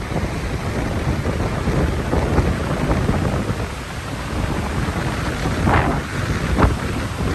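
Storm wind rumbling heavily over the microphone, with rain and a few sharper gusts or splashes near the end.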